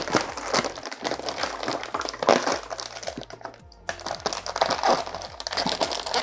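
Plastic fish-shipping bag crinkling and crackling as it is handled and opened, with a short pause a little after three seconds in.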